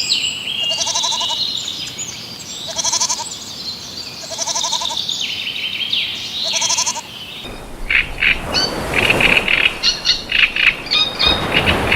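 An animal giving a quavering, bleat-like call about every two seconds, four times. About seven seconds in, this gives way to a flurry of rapid high bird chirps and chatter.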